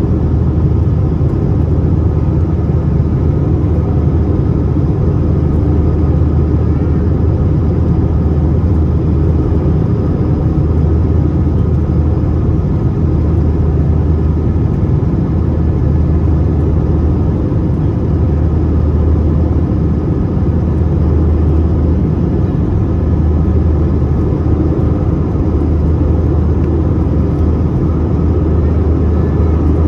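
Airbus A321-231 cabin noise: a steady roar of its IAE V2500 engines and airflow, with a deep drone underneath and faint steady whining tones above.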